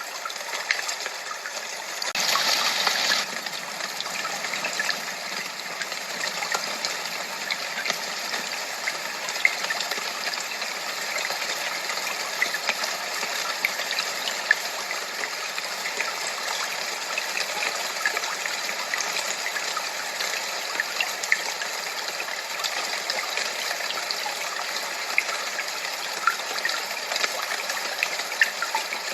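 Steady rushing, splashing water noise with many small ticks and drips scattered through it, and a brief louder surge about two seconds in.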